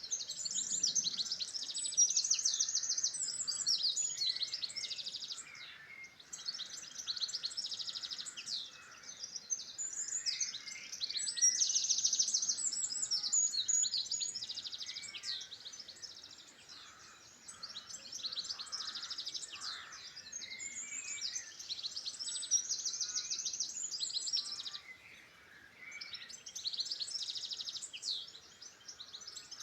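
Songbirds singing: high-pitched phrases of rapid notes and trills, each a few seconds long, repeated with short pauses between them, over fainter calls from other birds.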